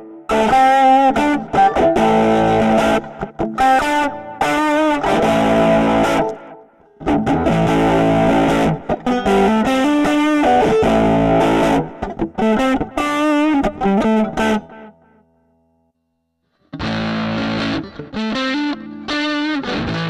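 Strat-style electric guitar played through the Zoom G1Four's 'Hot Tweed' overdriven amp patch: driven chords and single-note lines. About three-quarters through, the playing stops for a second and a half. It then resumes with the cabinet simulator switched on, which sounds less bright.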